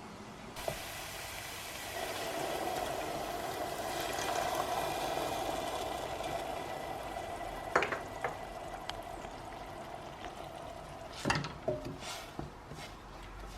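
Food sizzling in a hot pan. The hiss starts suddenly about half a second in, swells, then eases, with a few sharp knocks of a utensil against the pan near the end.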